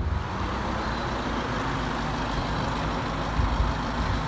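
Steady road noise of a car on the move: even tyre and engine noise with no distinct events.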